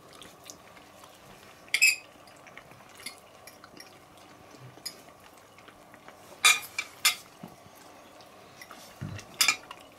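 Metal fork clinking against a plate, a few sharp clinks: one with a short ring about two seconds in, then several more in the second half.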